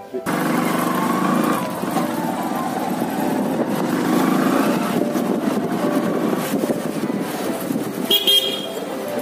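Motorcycle running as it rides along, a steady engine-and-road noise, with a brief horn toot near the end.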